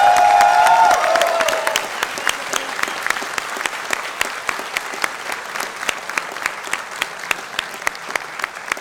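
Audience clapping together in a steady rhythm, about three claps a second, with one clapper close by. A long held shout from the crowd fades out in the first two seconds.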